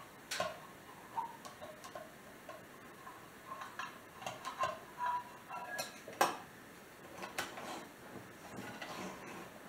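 Irregular light clicks and clinks as the crank-and-paddle top of a 1915 jar butter churn is worked and twisted down onto the glass jar of cream to seat it properly, the sharpest click about six seconds in.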